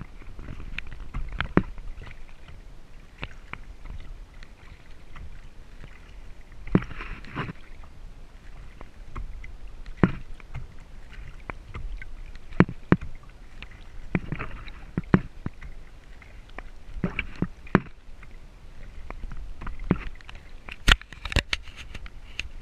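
Kayak being paddled: paddle strokes splash every few seconds over a low steady rumble of water, with many sharp knocks scattered throughout and a cluster of them near the end.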